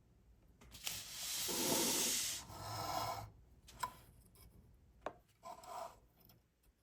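Scraping and rubbing from small parts being handled on a workbench: one long scrape of about two and a half seconds, then a couple of light clicks and a short final scrape.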